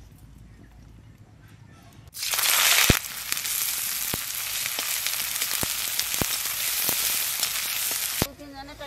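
Sliced onions dropped into hot mustard oil in an aluminium kadai: a sudden loud burst of sizzling about two seconds in, settling into steady frying with a metal spatula clicking and scraping against the pan. The sizzling cuts off near the end.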